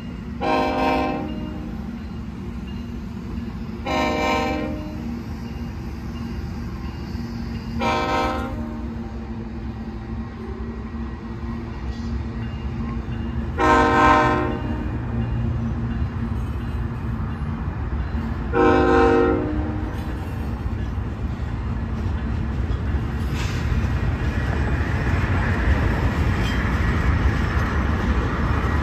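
Union Pacific diesel freight locomotive's air horn sounding five blasts of about a second each, four to six seconds apart, over the steady low rumble of the passing freight train. In the last few seconds the rolling noise of the boxcars grows louder.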